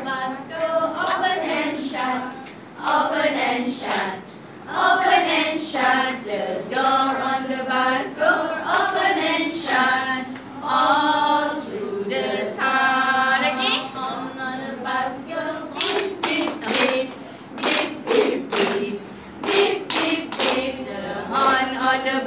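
A group of women singing a children's action song together, with hand claps that become more frequent in the second half.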